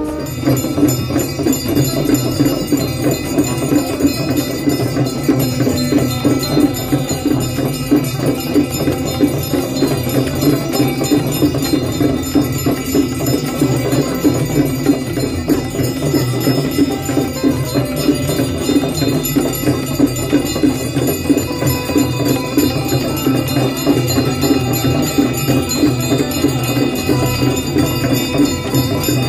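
Many brass hand bells rung rapidly and continuously, with a steady drumbeat underneath, as in the bell-and-drum accompaniment of a Hindu aarti.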